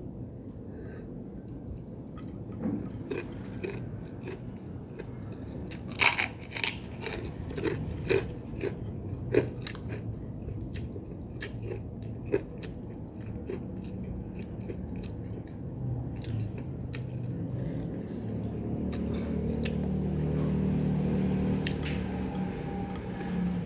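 Close-up eating sounds: chewing, with a run of sharp crunching bites in the middle. A low steady hum swells up near the end.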